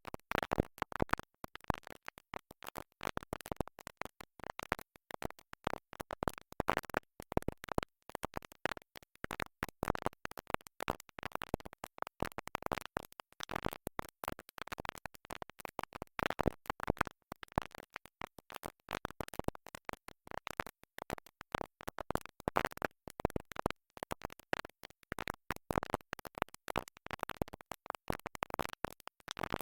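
A stuck record: a tiny snatch of music repeating over and over in rapid, choppy stutters with scratchy cut-offs and brief gaps between them.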